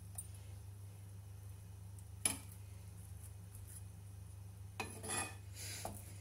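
A metal turner on a nonstick frying pan: one sharp clink about two seconds in, then two short scrapes near the end as it is pushed against the pan. A faint steady low hum runs underneath.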